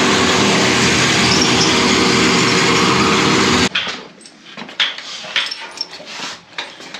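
A power tool running loud and steady, which stops abruptly a little over halfway through, followed by scattered light knocks and clicks.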